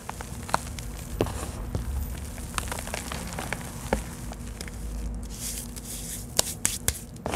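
Dry red dirt and clay chunks crunching and crumbling as a gloved hand squeezes and rakes through them, with scattered sharp crackles and a cluster of louder cracks near the end.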